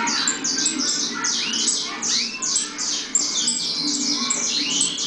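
Caged saffron finches (canário-da-terra) chirping: a quick, continuous run of sharp chirps, each falling in pitch, several overlapping at once.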